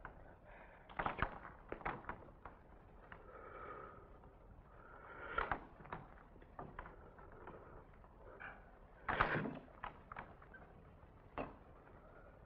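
Irregular thuds and knocks of bare feet and body movement on a stage floor, in scattered clusters, loudest about a second in, midway, and near the nine-second mark.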